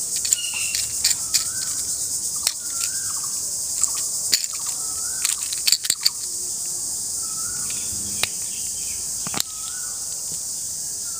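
Clicks and taps of hands handling a small plastic toy candy container: the clear round lid is pried and lifted and the small candies shift inside. Behind it runs a steady high hiss, and a bird's short rising call repeats every couple of seconds.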